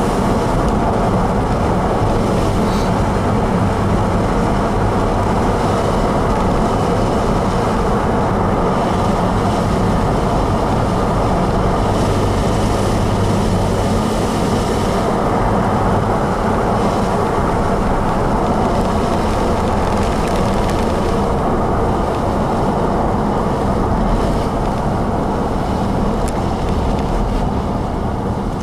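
Steady road and engine noise inside a moving vehicle, with tyres rumbling on pavement. It eases off slightly near the end as the vehicle slows.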